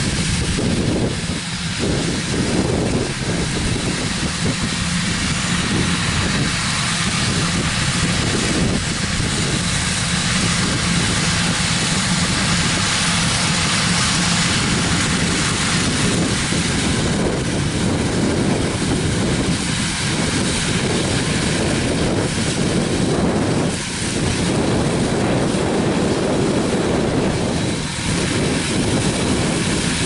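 Versatile 400 four-wheel-drive tractor pulling a Brent 882 grain cart and a John Deere S660 combine cutting soybeans, running together as one continuous, steady machinery drone with a low engine hum.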